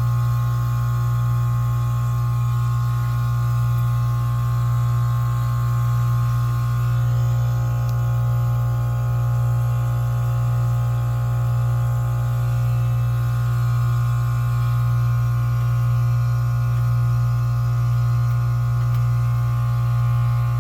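Goodman heat pump outdoor unit running in its defrost cycle: a loud, steady low hum with fainter higher tones above it, gently swelling and fading every couple of seconds.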